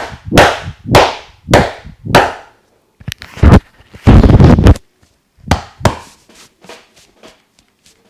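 Hands slapping and chopping on a head during an Indian barber's head massage: five loud slaps about half a second apart, then a fast flurry of chopping strokes a few seconds in, two more slaps, and lighter taps near the end.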